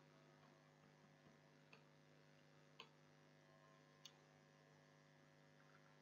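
Near silence: a faint steady electrical hum, with a few soft clicks from a computer keyboard and mouse, about two, three and four seconds in.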